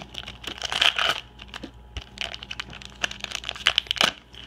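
Red foil hockey card pack wrapper (Tim Hortons 2017-18 NHL cards) being torn open and crinkled by hand: irregular crackling, in louder bursts about a second in and again between about three and four seconds.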